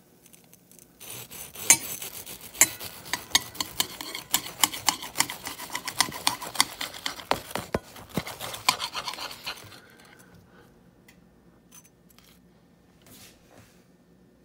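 Serrated knife sawing back and forth through a grilled cheese sandwich's dark, crisp toasted bread: a quick run of crunchy, rasping strokes that starts about a second in and stops about ten seconds in.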